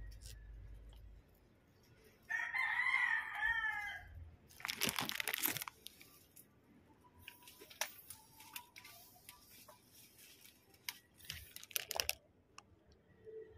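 A rooster crows once, about two seconds in, in a single call under two seconds long. Then leaves and stems rustle as hands pick through the chili plants, loudest just after the crow, with scattered lighter rustles and clicks later.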